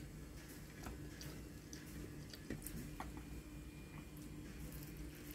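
Scattered light clicks of wooden chopsticks against a ceramic bowl as spaghetti is picked up and stirred, with soft chewing, over a steady low hum.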